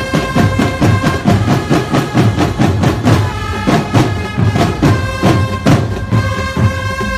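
A live drum and brass band plays Sinulog street-dance music: rapid, driving beats on bass and snare drums under held brass horn notes.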